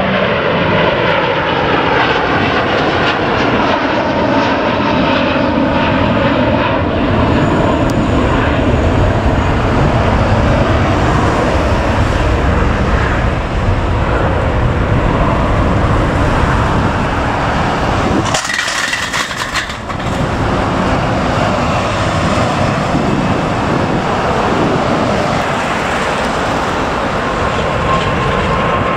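Rolls-Royce Trent 700 jet engines of a Virgin Atlantic Airbus A330-300 at take-off thrust, climbing out overhead, with a whine that falls in pitch as it passes. After a sudden break about two-thirds of the way through comes the steady take-off roar of an Air Canada Boeing 777-300ER's GE90 engines.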